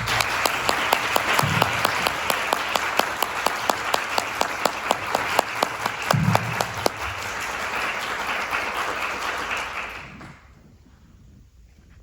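Audience applauding, with single claps standing out sharply and evenly, then dying away about ten seconds in.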